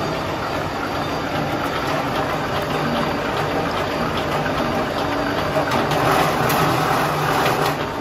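Electric waste wire stripping machine running steadily, its motor and gearbox humming and the stripping rollers turning while thin solid wire is fed through. It grows a little louder and noisier about six seconds in.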